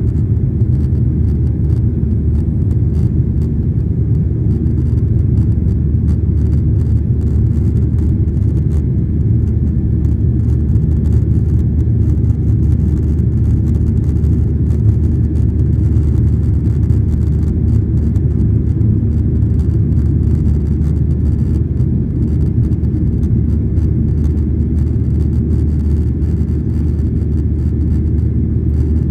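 Steady low rumble of a Boeing 737's jet engines and rushing air, heard inside the cabin during the climb after takeoff.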